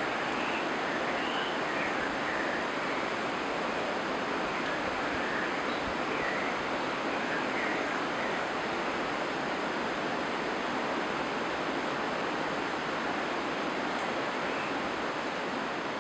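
Steady rushing of running water, with a few faint short high notes over it.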